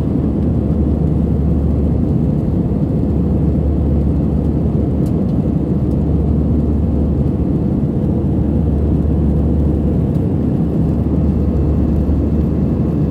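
Jet airliner's engines and rushing airflow heard from inside the passenger cabin in flight: a loud, steady low drone that stays even throughout.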